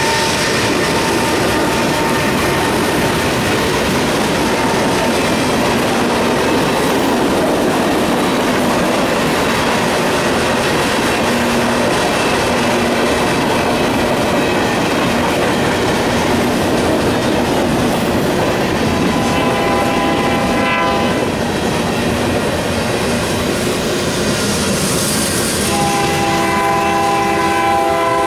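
Freight cars rolling past at close range: a steady rumble of steel wheels with clickety-clack over the rail joints as tank cars, covered hoppers and gondolas go by. About two-thirds of the way through, a locomotive horn sounds a chord of several tones for about a second and a half. It sounds again near the end and is still going at the close.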